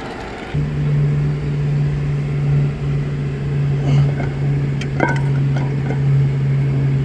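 A steady low machine hum starts abruptly about half a second in and runs on, with a few light metallic clicks over it.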